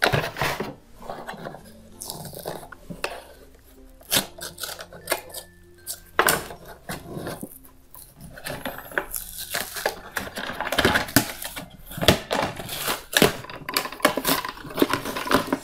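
Stiff clear plastic blister packaging being cut and pried open to free a toy car from its card backing: irregular crackling, clicks and taps of the plastic and card.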